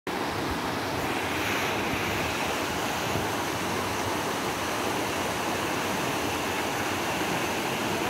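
Mountain river rushing over boulders in shallow rapids: a steady, even sound of white water.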